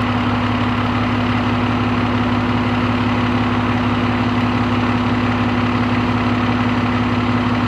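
Fire truck's diesel engine idling with a steady, unchanging hum.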